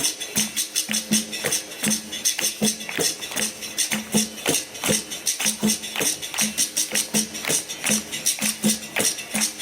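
Live capoeira music: a steady percussive rhythm of pandeiro jingles and strikes, with a short repeated low tone about twice a second.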